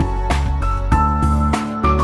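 Background instrumental music with bass, held melody notes and regular percussive hits.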